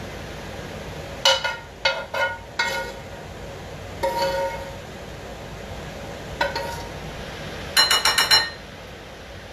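Metal utensil clinking against a skillet as noodles are scraped out of it, each strike ringing briefly. There are single clinks spread over the first six seconds, then a quick run of about six taps near the end.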